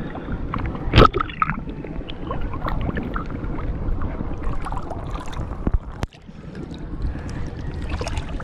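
Shallow seawater sloshing and lapping close to the microphone around a wading angler, with scattered small splashes, one sharp knock about a second in and a brief drop in level about six seconds in.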